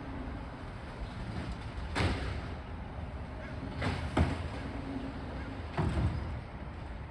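Garbage truck engine running steadily, with three loud bangs about two seconds apart.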